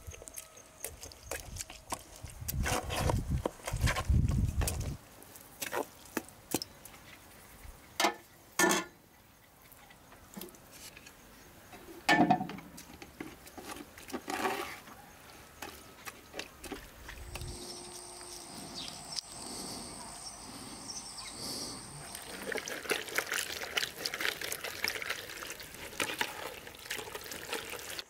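Water pouring and splashing, broken by scattered knocks and clatter of handling, with heavy thumps about three to five seconds in and a longer steady pouring stretch near the end.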